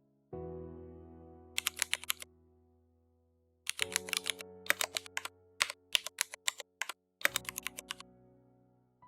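Computer keyboard typing in quick bursts of keystrokes, with pauses between, over soft background music whose held chords strike about every three and a half seconds and fade away.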